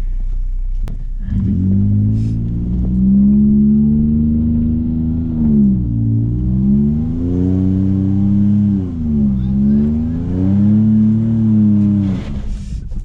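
Toyota Highlander's engine revving hard as it drives through deep sugar sand under heavy load, revs held high with two brief dips before it lets off near the end.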